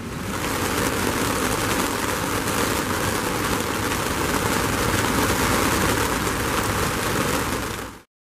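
Steady hiss of heavy rain falling, cutting off suddenly near the end.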